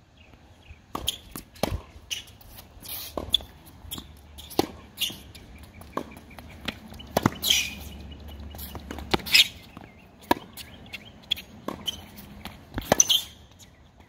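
Tennis rally on a hard court: sharp, irregular pops of the ball struck by rackets and bouncing off the court, with footsteps and a few short sneaker squeaks.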